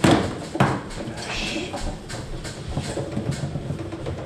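Foosball table in play: two sharp clacks within the first second, then a steady light clatter of rods and plastic player figures.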